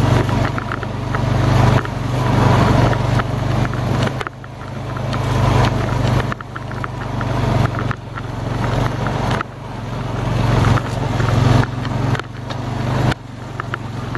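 Honda Rancher ATV's single-cylinder engine running under way. The throttle is worked on and off, so the engine grows louder over a second or two and then drops off sharply, again and again.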